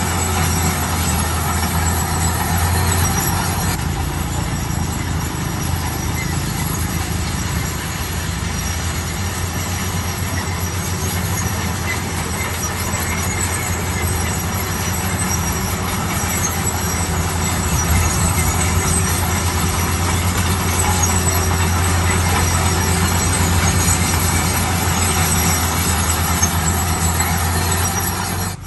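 Bulldozer running steadily, its diesel engine giving a constant low hum under a broad mechanical noise.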